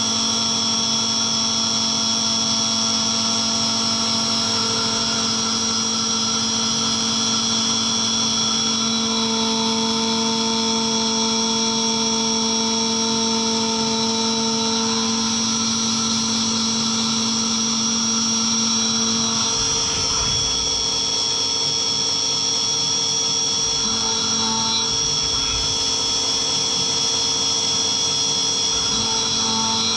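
Skyfire SVM1 CNC vertical machining centre milling a metal part with a carbide end mill under flood coolant: a steady spindle and cutting whine made of several held tones. The tones shift about two-thirds of the way through as the cut changes.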